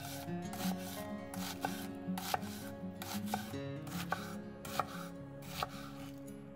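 Chef's knife dicing an onion on an end-grain wooden cutting board: a series of irregular cuts, each a crisp slice through the onion ending in a sharp knock of the blade on the wood.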